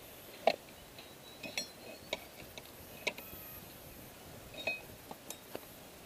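Light metallic clicks and clinks of metal hardware on a tower's microwave dish mount, about ten of them at irregular intervals; the sharpest comes about half a second in.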